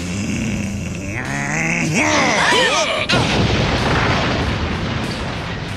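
Cartoon sound effects: a giant's deep, straining groan or roar, then about three seconds in a sudden loud crash that rumbles on.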